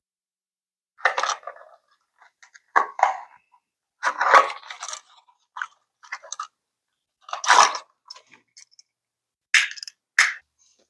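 Short, irregular bursts of crunching and scraping, about eight in all, with near-silent gaps between them.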